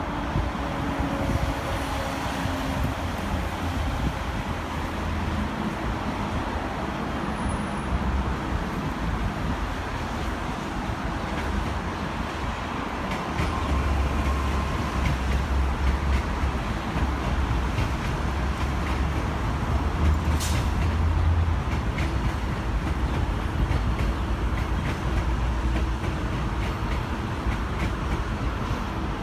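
Diesel locomotive engine running with a deep, steady rumble, louder for about eight seconds in the middle.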